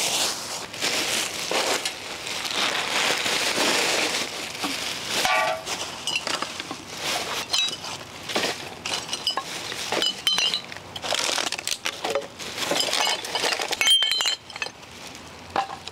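Plastic trash bag rustling as junk is stuffed into it, then a run of short ringing clinks from hard debris being picked up and dropped into the bag through the second half.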